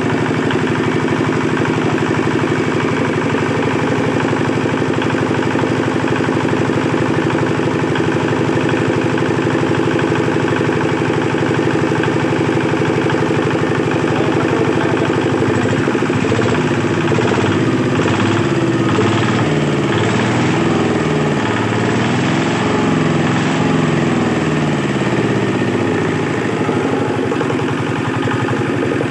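Brand-new R-180 single-cylinder water-cooled diesel engine running steadily at idle; from about halfway through, its speed rises and falls repeatedly before settling again near the end.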